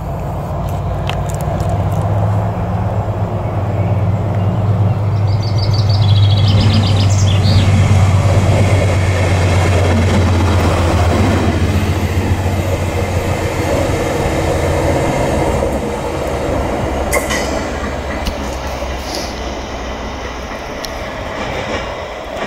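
British Rail Class 70 diesel locomotive running light engine past at close range, its GE PowerHaul V16 diesel a deep steady drone that grows louder as it approaches, is loudest as it passes, then fades as it draws away.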